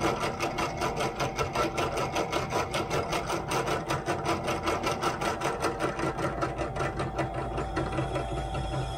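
Benchtop drill press running and drilling into a flat metal bracket strip, with a fast, even rhythmic chatter of about five to six beats a second over the motor's steady hum. The chatter fades in the last second while the motor keeps running.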